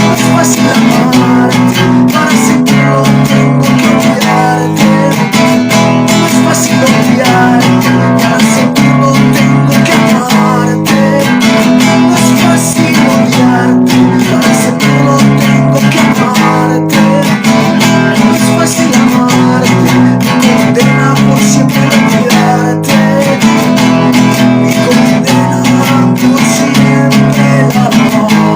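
Guitar-led music playing steadily with no voice: layered, sustained chords at a constant loud level.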